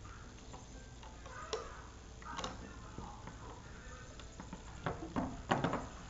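Light clicks and taps of a hook against the plastic pegs of a Rainbow Loom as rubber bands are looped over. They are scattered at first, then come several close together about five seconds in.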